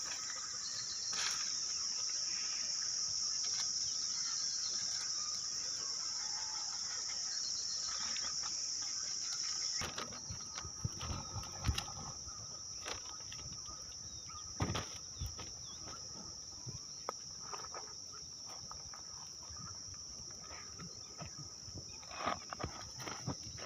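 Insects shrilling in a steady high drone that eases a little about ten seconds in, with scattered taps and knocks in the second half.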